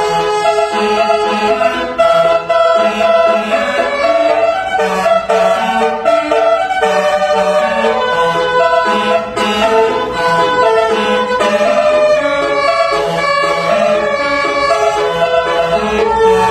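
Basuri multi-tone musical vehicle horn (telolet horn) playing a tune, one held note after another over a lower line of shorter notes.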